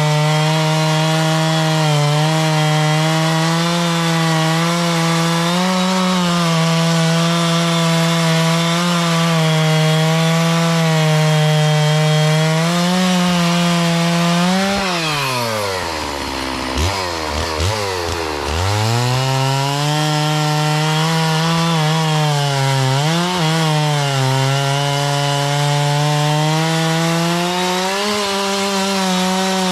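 Stihl MS 660 two-stroke chainsaw running at full throttle while bucking a log, its engine note held high and steady under load. About halfway through, the revs drop to near idle for a couple of seconds, then climb back up to cutting speed.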